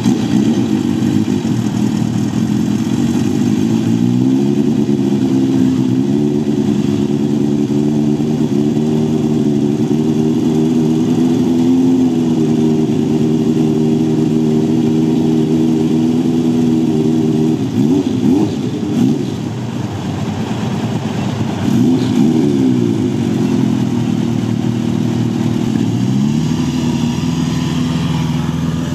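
Several air-cooled inline-four Honda CB motorcycle engines running together at idle, with the revs blipped up and dropping back a few times: about 4 seconds in, around 18, 22 and 26 seconds.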